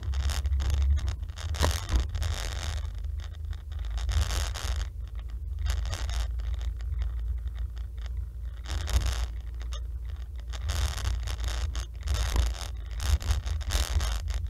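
Car driving through town streets, heard from a windscreen-mounted dashcam: a steady low road and engine rumble, with bursts of rustling hiss every second or few.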